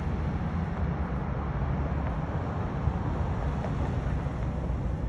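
Wind buffeting the phone's microphone: a steady, irregularly flickering low rumble with a haze of outdoor noise.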